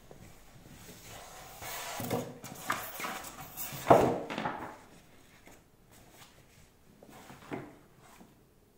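Unboxed TV parts being handled on a wooden table: rustling for a couple of seconds with a sharp knock about four seconds in as a part is set down, then a lighter knock near the end.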